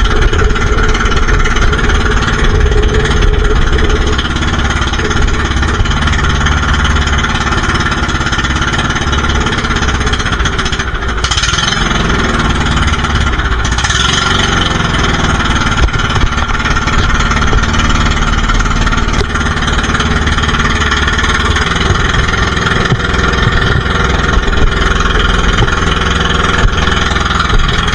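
Small outrigger boat's engine running steadily under way, with brief splashes of waves against the hull about halfway through.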